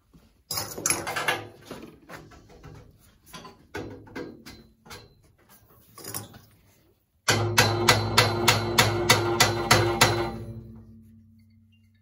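Scattered clinks and knocks as a shock mount insert and its threaded installation tool are fitted by hand into a steel chassis tube. About seven seconds in, a mallet starts striking the tool at three or four blows a second, driving the insert in. The steel tube frame rings with a steady hum that dies away slowly once the blows stop.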